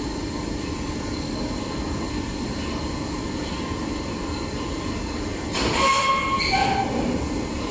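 Hydraulic high-frequency welding press running with a steady mechanical hum. About five and a half seconds in comes a louder hissing burst with high whistling tones, lasting about a second and a half.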